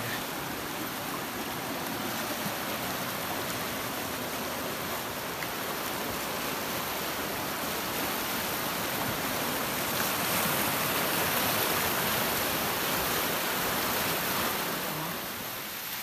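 Steady rush of flowing water from a hillside stream, a little louder for a few seconds past the middle.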